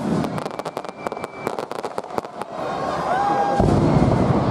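Fireworks display: a rapid crackle of many sharp small pops for the first two and a half seconds, then a deep boom about three and a half seconds in.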